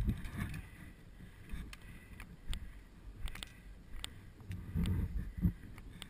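Rustling from the camera wearer moving, with wind on the microphone and scattered faint clicks; the rustling gets louder about five seconds in.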